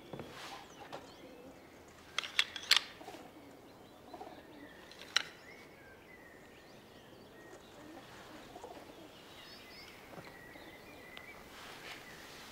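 Pigeons cooing faintly. About two seconds in there are three sharp clicks, and another comes about five seconds in.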